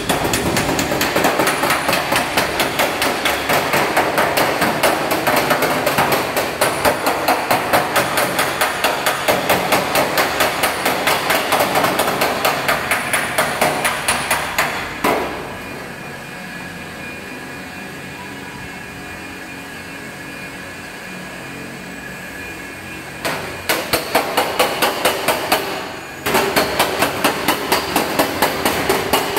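Body hammer rapidly knocking a car body panel, panel beating to work the sheet metal straight, about three blows a second. The hammering stops about halfway through for several seconds, leaving steady workshop noise, then starts again with a brief pause near the end.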